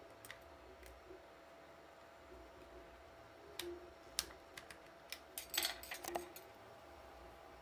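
Faint clicks and taps of a robot-dog kit's plastic parts and a small screwdriver being handled during assembly, a few scattered at first and most of them in the second half. A faint steady hum runs underneath.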